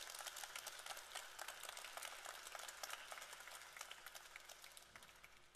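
Audience applauding: a dense patter of many hand claps that gradually dies away toward the end.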